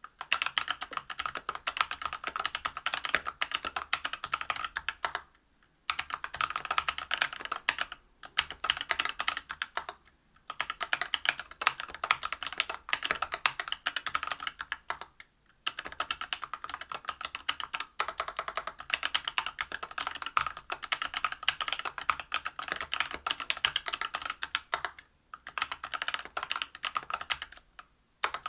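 Steady fast typing on a mechanical keyboard with stock, unlubed Everglide BeesWax 67 g linear switches in a brass plate under PBT keycaps: dense rapid keystroke clacks, broken by brief pauses several times.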